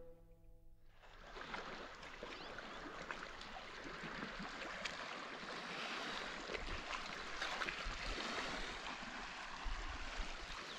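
Small waves lapping gently at the lake shore, a steady watery wash with light splashes that fades in about a second in.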